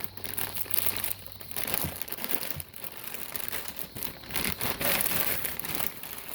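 Packaging being handled and unwrapped, crinkling and rustling in irregular bursts.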